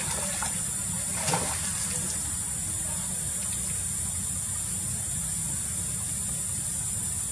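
Steady outdoor background noise: an even high hiss over a low rumble, with one brief louder sound about a second in.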